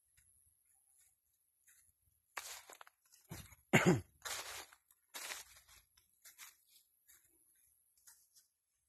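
Crunching and rustling of dry leaves and plant litter in a handful of irregular bursts, the loudest a crunch with a dull thud about four seconds in.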